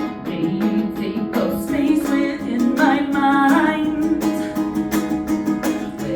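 Ukulele strummed in a steady rhythm, with a woman's voice singing a held, wavering phrase over it about a second and a half in.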